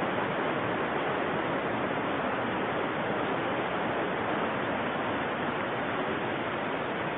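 Steady rushing of a shallow river running over rocks and small rapids.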